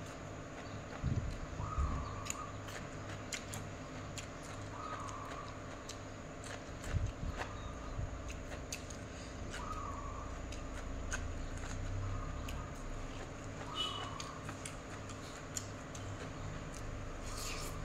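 Close-up eating sounds from a clip-on microphone: wet chewing and mouth clicks while eating cucumber salad with rice noodles by hand, with a few soft thumps against the microphone. A bird gives short calls every few seconds in the background, over a steady hum.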